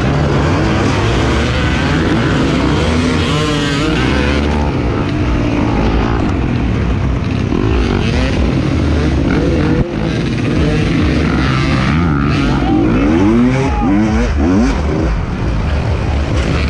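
Off-road motorcycle engine heard from on board, revving hard and rising and falling in pitch again and again as the bike accelerates and shifts over dirt, with the engines of other dirt bikes running close by.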